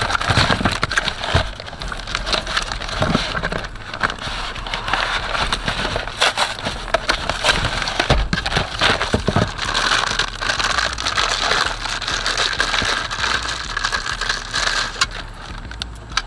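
Plastic wrap and a cardboard box being handled up close, a continuous crinkling and crackling full of small clicks.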